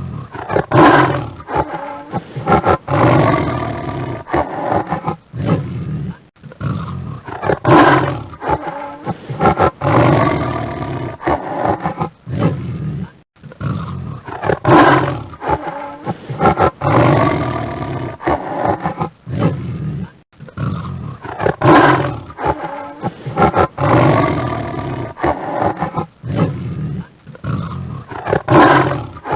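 Tiger roaring again and again: a loud roar opens each round, followed by lower, rougher sounds, the same sequence repeating about every seven seconds.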